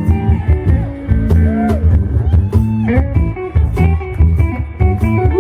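Live electric blues band playing, with electric guitar prominent over the rhythm section.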